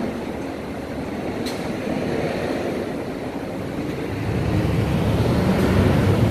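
A vehicle approaching, its low rumble growing louder from about four seconds in, over a steady rush of outdoor traffic noise.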